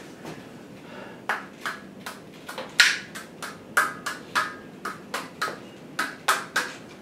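Paintbrush loaded with wet acrylic paint tapped sharply over and over, about two taps a second, flicking splatters of paint onto a large canvas.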